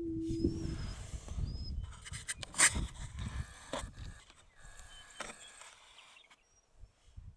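A male greater prairie chicken's low, steady booming note that ends under a second in, followed by rustling noise with several sharp clicks, the loudest about two and a half seconds in, and a few faint high chirps from other birds.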